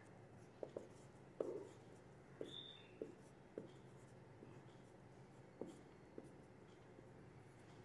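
Whiteboard marker tapping and stroking on a whiteboard as an equation is written: a series of short, faint taps and scratches, the loudest about one and a half seconds in, over a steady low hum.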